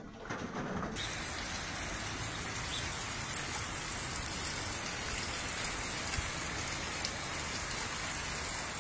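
Steady rain falling on a flooded street, an even hiss that turns brighter and louder about a second in.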